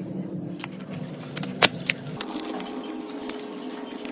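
A steady mechanical hum, its lower part dropping away about halfway through, with two sharp clicks a quarter second apart just before the change.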